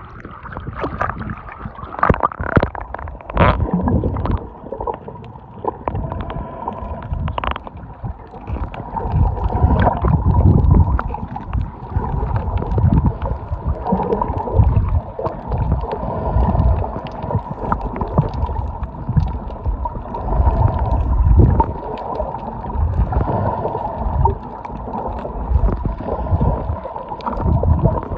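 Water sloshing and gurgling heard through a submerged camera, a muffled, uneven low rumble, with a few sharp splashes in the first few seconds and a faint steady hum underneath.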